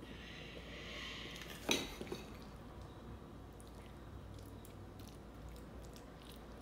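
A metal spoon scooping a chunky chicken topping out of a glass bowl and spreading it onto a pizza: one sharp clink of the spoon against the bowl about two seconds in, then faint scrapes, soft squishy dollops and light taps.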